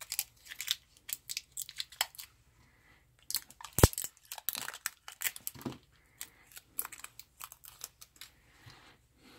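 Clear plastic wrap being torn and crinkled off AAA batteries by hand: a run of irregular sharp crackles and clicks, with one loud snap just under four seconds in.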